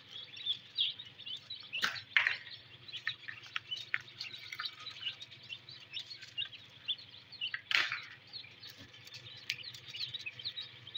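Newly hatched ducklings peeping in an incubator hatching tray: many short high peeps overlapping without a break, with two louder, noisier sounds about two seconds in and near eight seconds. A faint steady low hum runs underneath.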